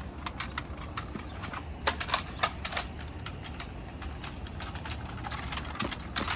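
Plastic toy gun being handled, giving scattered light clicks and knocks at an uneven pace.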